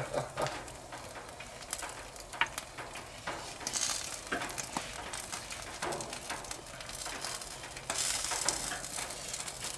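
Bacon-wrapped spring rolls sizzling and crackling on a gas grill's grate, with short clicks of metal tongs as they are handled. The sizzle swells briefly about four seconds in and again over the last two seconds.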